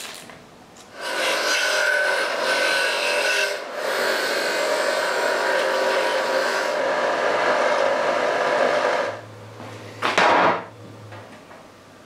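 Bench grinder's wire wheel scrubbing a small flat metal part held by hand against it, in a long steady scrape with a short break near the middle. Near the end the motor hums on its own, with one more brief scrape.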